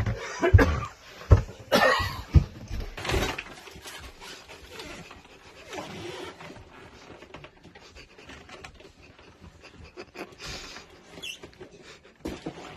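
Footsteps thudding up stairs, several heavy thuds in the first few seconds along with breathy panting, then quieter scuffs and knocks.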